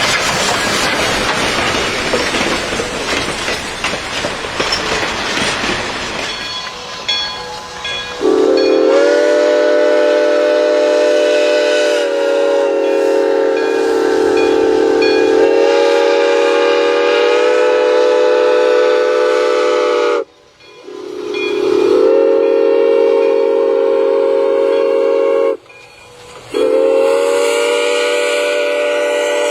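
A train running with a steady rushing noise, then about eight seconds in its horn sounds long chord-like blasts: one of about twelve seconds, a shorter one of about five, and a third that starts after a brief gap and carries on.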